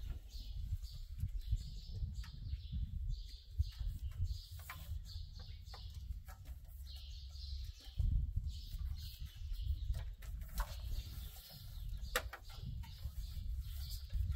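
Wind buffeting the microphone in uneven gusts, with birds chirping in the background and scattered light clicks and knocks from hose fittings being handled.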